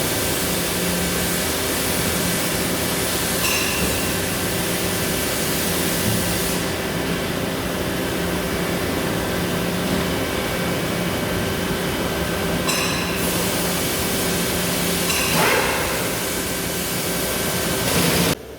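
Vertical turret lathe running with a steady machine hum and hiss. The hiss falls away for several seconds in the middle and comes back, with a few brief clanks. The sound cuts off suddenly near the end.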